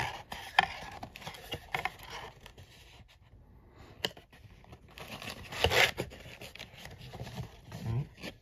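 Cardboard box flap being pulled open and foil trading-card packs rustling and crinkling as fingers handle them, in short scrapes and crinkles with a lull in the middle. The loudest crinkle comes a little past halfway.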